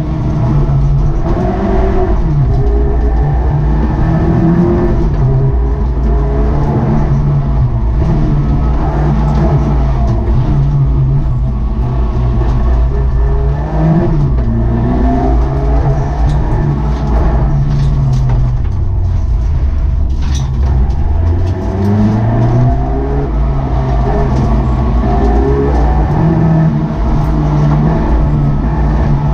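Car engine heard from inside the cabin, driven hard through a cone slalom, its revs climbing and falling again and again as the driver accelerates and lifts between the cones.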